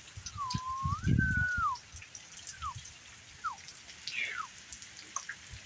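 Steady rain falling, with drips. About half a second in, a wavering whistled tone lasts a little over a second, then a few short falling chirps follow.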